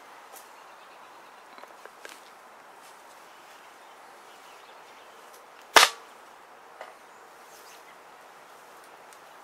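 A single loud, sharp crack about six seconds in, with a few faint clicks before it and a softer click about a second after.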